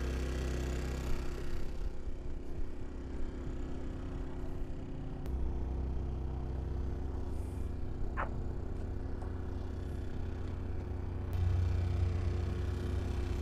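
A small engine running steadily, with a low rumble that swells about five seconds in and again near the end. A short rising chirp sounds once about eight seconds in.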